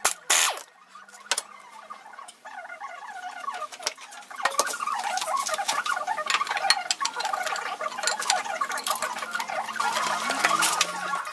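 Workshop sounds played back fast, as in a time-lapse. There are short, loud bursts of an impact wrench right at the start, then a high, chattering, squeaky patter of rapid clicks and wavering tones from about four seconds in.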